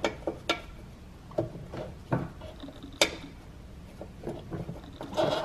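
Light plastic clicks and knocks as a bulb socket and its wiring are handled and fitted into a car headlight housing. There is a sharper click about three seconds in and a few quick ones near the end.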